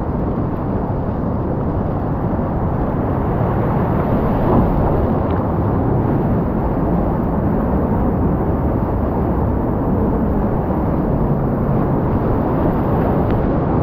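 Whitewater rapid rushing, heard from right inside it on a kayak: a loud, steady wash of churning water, dull and low with little hiss.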